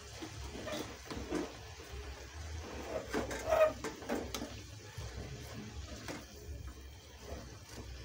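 A plastic spatula turning shredded cabbage and carrots in a stainless steel pot: irregular scraping and rustling, with one louder scrape about three and a half seconds in.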